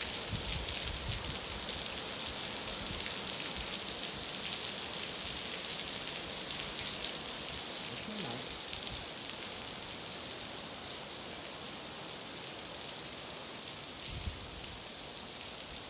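Heavy rain falling steadily on a paved pool deck, an even hiss heard through open patio doors, easing a little in the second half.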